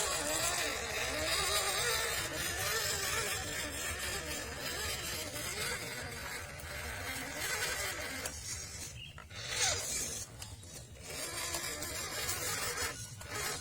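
Small electric motor and gearbox of an RC off-road truck whining, its pitch wavering with the throttle, stopping briefly a few times in the second half.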